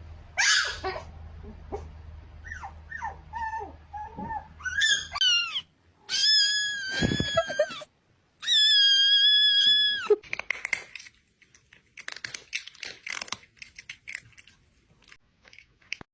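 A dog whining and yipping in short cries that slide up and down, then giving two long, high, steady cries one after the other, followed by scattered faint clicks and scuffles.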